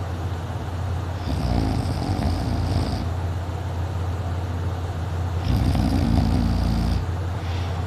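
Sleep snoring: two long snores about four seconds apart, each lasting about a second and a half, over a steady low hum.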